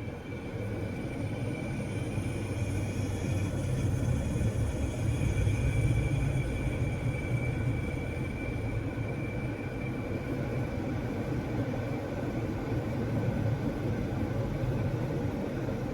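2022 Jeep Grand Cherokee running with its air conditioning on: a steady low rumble with faint steady high tones over it, getting a little louder a few seconds in. Among them is the AC's hissing noise, not as loud now, which the owners put down to low refrigerant pressure as they recharge it.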